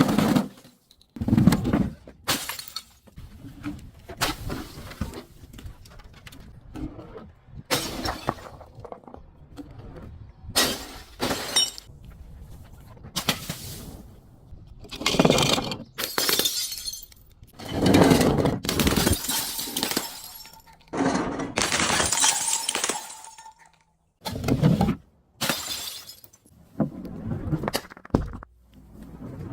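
A series of separate breaking and crushing sounds, glass crunching and shattering among them, each starting and stopping abruptly.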